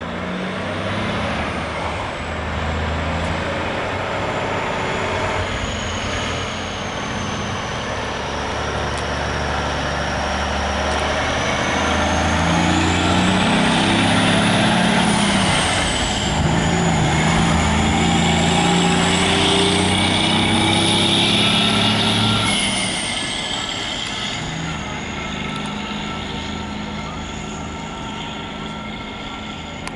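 Cummins N14 inline-six diesel in a dump truck pulling a loaded equipment trailer, running under load as it drives past. Its pitch climbs, drops suddenly about halfway through and climbs again. It is loudest as the truck passes close and fades as it drives away.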